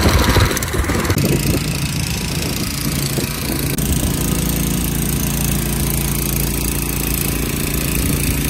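Pressure washer's 7 hp 170F single-cylinder petrol engine running steadily, with water spray from the surface cleaner hissing over the engine hum. It is louder and rougher for about the first second, then settles to an even drone.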